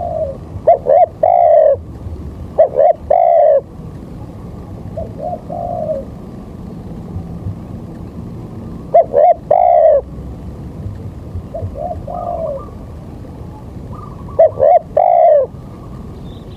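A bird calling in repeated low-pitched phrases: each phrase is one or two short notes and then a longer note, about six phrases spread a few seconds apart, over a steady low background noise.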